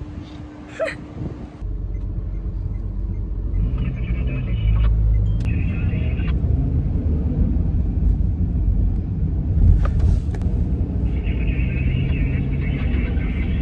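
Steady low rumble of a moving car, heard from inside the cabin, starting abruptly about two seconds in.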